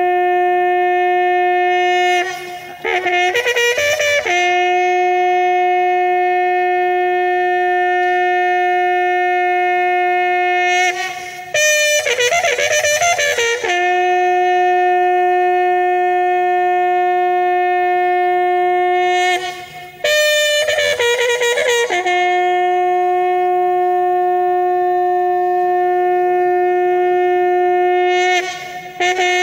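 A loud wind instrument playing long held notes, each lasting about seven or eight seconds. Three times, a brief break and a quick run of changing notes separate the held notes before the long tone resumes.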